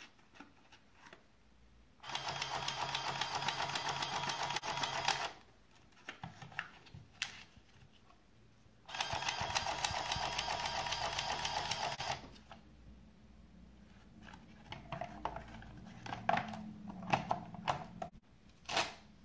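Small roll-paper printer's feed mechanism running to advance the paper, in two bursts of rapid mechanical rattling about three seconds each. Between and after them come rustling paper handling and clicks, with a click near the end as the printer cover is closed.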